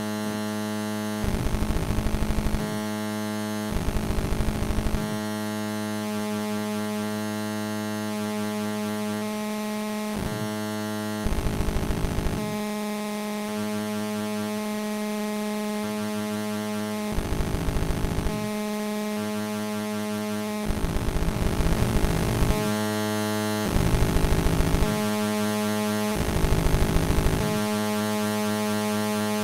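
SynthCone PATCH analog synthesizer sounding a steady, buzzing pitched drone with a fast pulsing pattern over it. The drone is broken seven times by harsh, noisy bursts of about a second each as fingers touch its contact pads to bend the sound.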